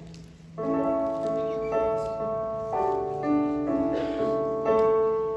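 Piano interlude between sung verses: after a brief hush, sustained chords begin about half a second in and are struck again every half-second to a second, each fading before the next.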